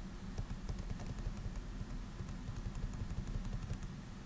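Light, irregular clicking of a computer keyboard, key taps scattered through, over a steady low hum.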